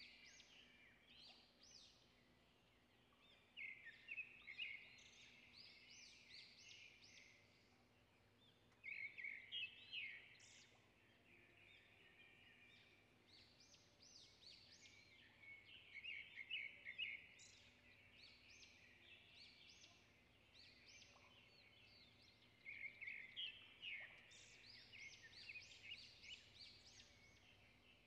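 Faint birdsong: a songbird repeats a short phrase of rapid chirps four times, every six seconds or so, over a faint low hum.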